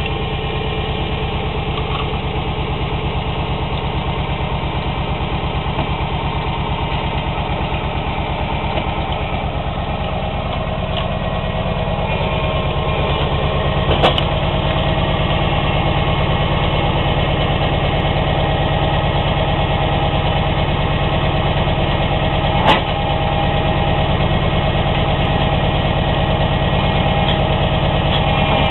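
An engine running steadily at idle with an even, fast pulse, and two sharp clicks, one about halfway through and one near the end.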